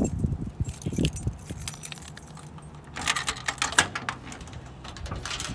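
A ring of keys jangling while a key is fitted into a car's trunk lock, with a burst of jingling and clicks about three seconds in.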